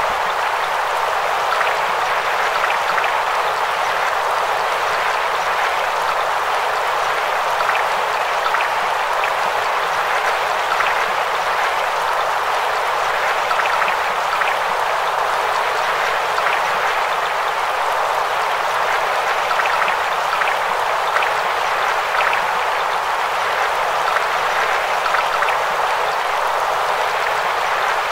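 Steady noise of swimming-pool water picked up by an action camera held underwater in its waterproof housing, even and unbroken throughout.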